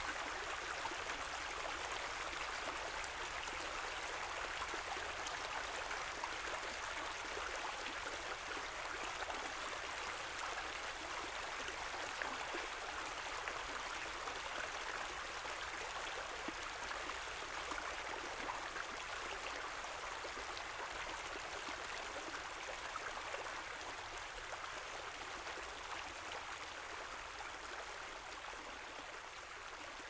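Small forest spring trickling over rocks: a steady, even babble of running water, growing slightly quieter near the end.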